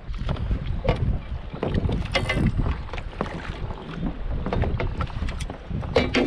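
Wind buffeting the microphone and water lapping against a kayak's hull, with scattered small knocks and a brief hiss about two seconds in.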